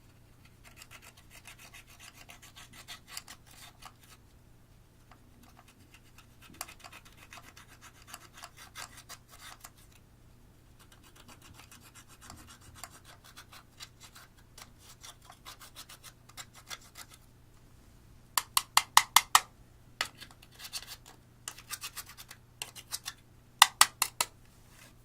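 Clear slime being worked and squished, giving stretches of fine, rapid clicking and crackling as air pockets pop, with louder runs of sharp pops near the end.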